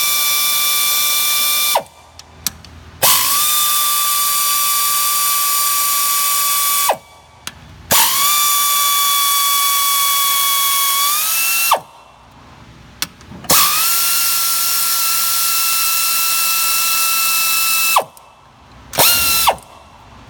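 Pneumatic air ratchet spinning out the 10 mm bolts that hold an AC compressor, in four long runs of a steady high whine several seconds each, with short pauses between them. A few short blips of the tool come near the end.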